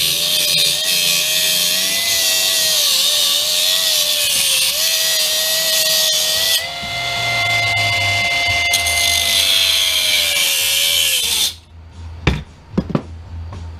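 Power tool cutting through the steel of a windshield wiper linkage assembly: a steady, loud cutting noise over a wavering motor whine, which stops suddenly near the end. A few sharp knocks follow.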